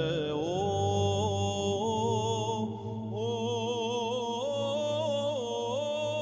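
Greek Orthodox Byzantine chant: a sung melody with wavering, ornamented turns over a steady low held drone (the ison).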